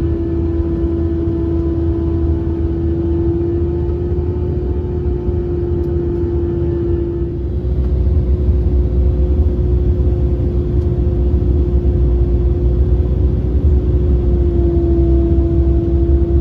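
Airbus A319-100 cabin noise in the climb: a low rumble of engines and airflow with a steady hum-like tone over it, the odd sound heard throughout the flight. It grows a little louder about halfway through.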